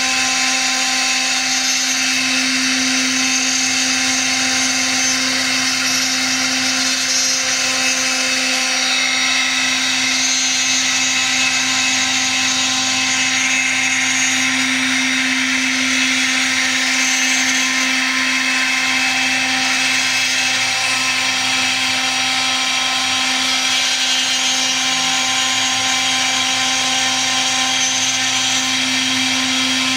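Milling spindle running at constant speed with a steady whine, its cutter milling textolite (fabric-reinforced phenolic laminate) with a continuous hissing cut.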